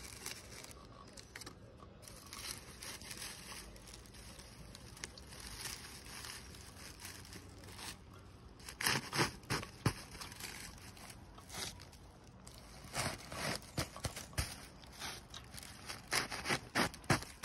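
Dry thatching straw rustling and crackling as it is pulled, pressed and laid by hand, with clusters of sharp crackles around the middle and near the end.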